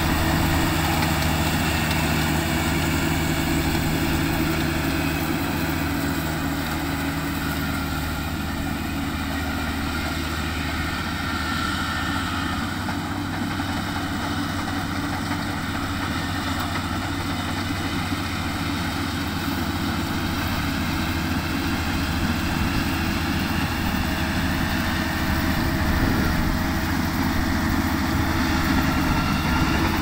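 Rice combine harvester running steadily while it cuts and threshes, a constant engine hum with a higher whine over it; slightly quieter midway and louder again near the end as the machine comes closer.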